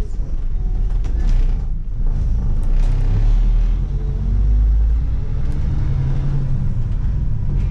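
Vintage bus engine running under way, heard from inside the passenger saloon: a steady low rumble, with the engine note rising and falling as the bus drives along, and a few light rattles from the body.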